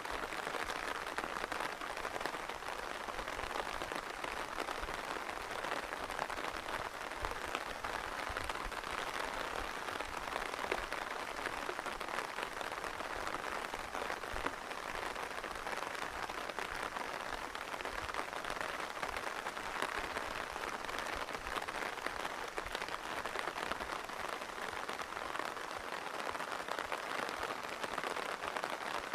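Steady rain falling and pattering on surfaces, with many close drips and drops ticking over the steady hiss.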